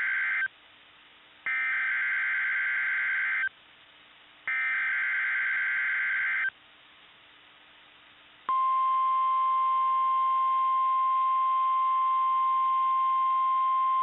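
NOAA Weather Radio EAS alert opening for a Tornado Watch. The first SAME digital header burst, a harsh data warble, ends half a second in, and two more bursts of about two seconds each follow a second apart. About eight and a half seconds in, the steady 1050 Hz Weather Radio alert tone starts: one long, loud, pure tone.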